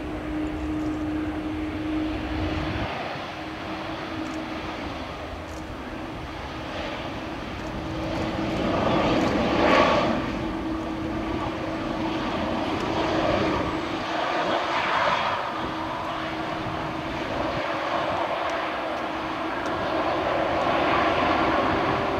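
Airbus A320-214's CFM56 turbofan engines running as the airliner rolls along the runway and slows to taxi speed, a continuous jet roar that swells and fades, loudest about ten seconds in.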